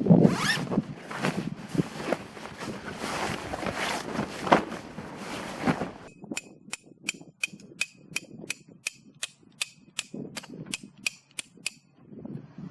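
Rustling and handling noise with a few knocks, then, about six seconds in, a steady series of sharp metallic taps, about two a second, each with a brief ringing tone.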